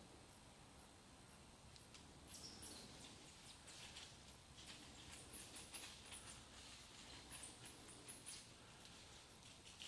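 Faint, very high, thin squeaky chirps from a small animal, in three short runs of quick notes that each step down slightly in pitch.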